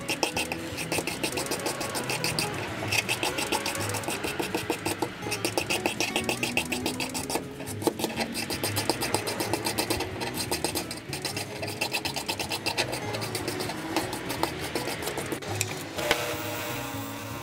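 Rapid, rasping hand strokes working rust off a screwdriver's steel shank. About a second before the end it changes to the steadier sound of a bench-grinder wire wheel running with the screwdriver held against it.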